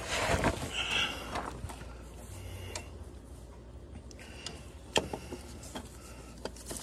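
A starter motor being worked up into place by gloved hands: rustling and scraping as it is fed past lines and brackets, then a few sharp light clicks and knocks of metal against metal.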